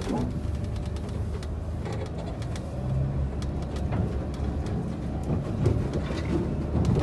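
Car driving along a sandy track, heard from on board: a steady low rumble with scattered clicks and ticks.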